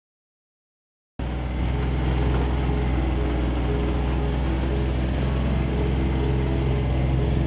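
After about a second of dead silence, a vehicle engine starts to be heard, running steadily with a low hum and road or cabin noise.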